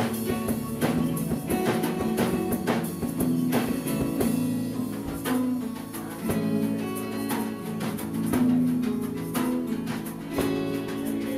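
Live acoustic band playing: several acoustic guitars picked and strummed over bass, with hand percussion keeping a steady beat.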